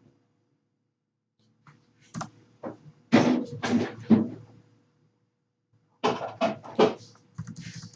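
Computer keyboard keys and mouse clicks picked up by a desk microphone, heard as two short runs of knocks, one about two seconds in and another about six seconds in, as a line of code is deleted and retyped.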